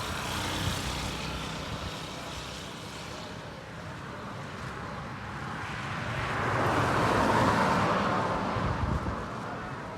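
Strong wind blowing over the microphone, an uneven rushing and low buffeting that swells louder for a few seconds about six seconds in, then eases.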